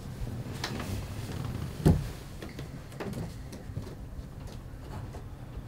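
A person getting up off a bed and walking away: a dull thump about two seconds in, then a few light knocks and clicks.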